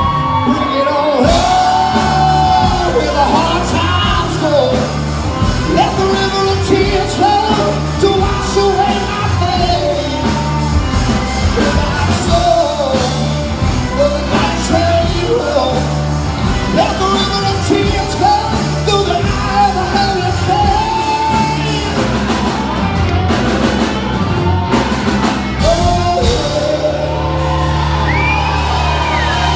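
Rock band playing live, with a lead singer over drums and bass; the singer's voice rises into shouted lines.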